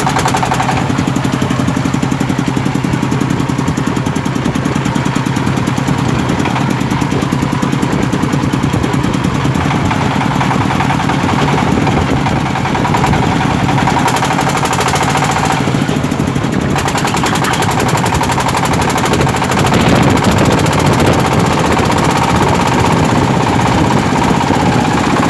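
A Toyama TDWE30RE-HD 30 hp diesel engine running under load as the farm cart it powers drives along, a steady rapid clatter of firing pulses heard close up from the driver's seat.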